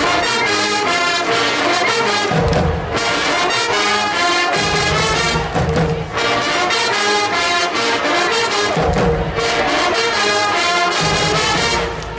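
A marching band playing loudly: brass melody over a pounding drum line, in short phrases.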